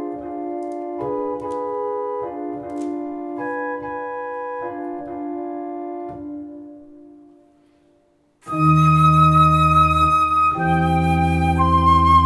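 Two-manual electronic organ playing slow sustained chords that fade away about seven seconds in. After a brief silence, organ and transverse flute start together loudly over a deep bass, the flute's tone wavering with vibrato.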